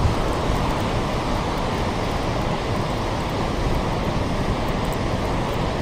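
Steady rushing noise of turbulent tailwater churning below a dam.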